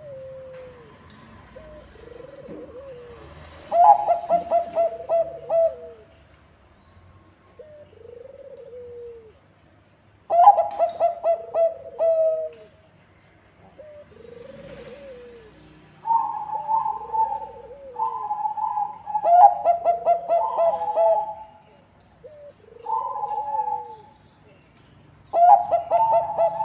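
Zebra dove (Bangkok perkutut) song: about six loud phrases of quick stuttering coo notes, with softer single falling coos in between.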